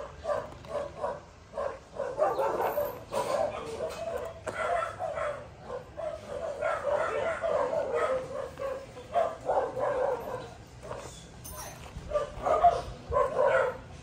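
A dog barking repeatedly, in quick runs of short barks.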